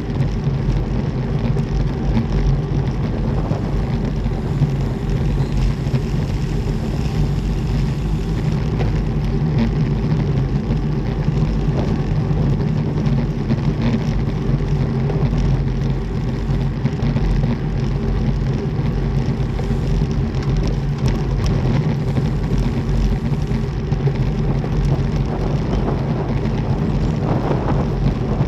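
Steady rush of wind over a bike-mounted camera's microphone, with road-bike tyres rumbling on brick paving at about 45 km/h.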